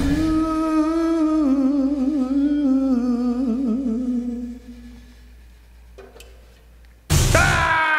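A voice holds one long vocal note with a wavering vibrato, sliding gently down in pitch and fading out about four and a half seconds in, with no drums under it. After a faint click, a loud sudden sound with a slightly falling pitch cuts in about seven seconds in.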